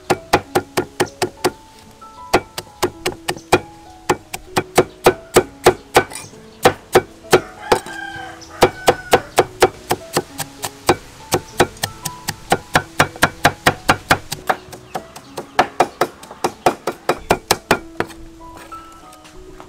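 A cleaver chopping and mincing red chillies on a thick round wooden chopping board: sharp, even knocks of the blade on the wood, about four a second, over soft background music.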